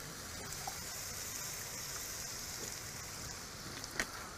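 Wild mushrooms sizzling steadily in a frying pan, with one short knock about four seconds in.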